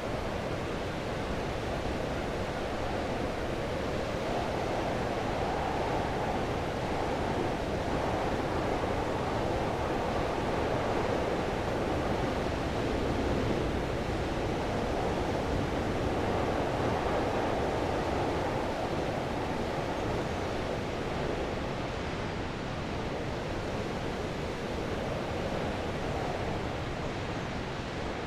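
Heavy wind blowing steadily, a dense rushing noise that swells slightly and eases in slow gusts.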